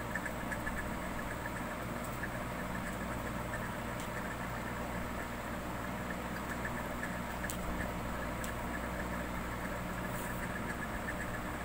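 A steady low mechanical hum under an even background hiss, with a few faint clicks.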